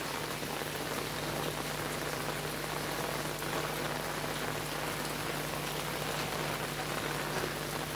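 Steady rain falling on a rooftop terrace with water pooled on the floor.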